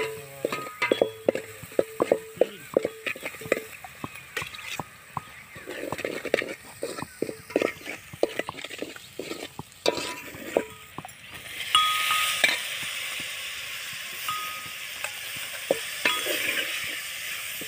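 A steel ladle stirring masala in a metal cooking pot, knocking and scraping against the pot again and again with short metallic rings. About twelve seconds in, a steady sizzle starts as green beans go into the hot masala.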